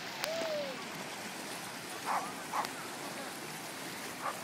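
Busy lakeside beach ambience: a steady wash of shallow water and distant voices of people wading with dogs, with a short gliding call just after the start and a few brief distant calls about two seconds in.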